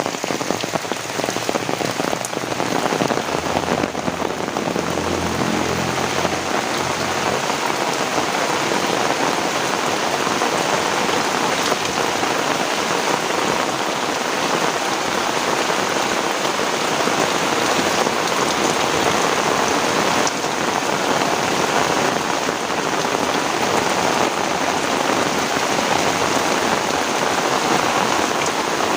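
Heavy rain falling steadily on surfaces in a dense, even hiss, with a low rumble for a few seconds near the start.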